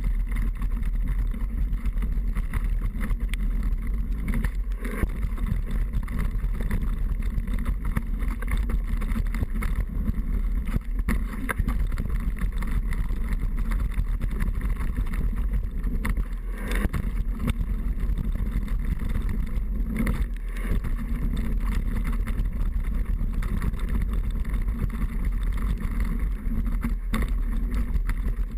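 Steady wind roar on the microphone with frequent knocks and rattles, the sound of a camera riding along on a downhill mountain bike over rough ground.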